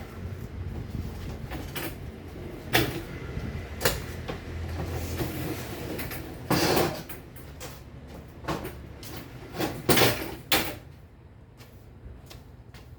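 Irregular knocks and clatter of objects being handled, with a scraping stretch about the middle. The loudest knocks come about a third of the way in and twice near ten seconds.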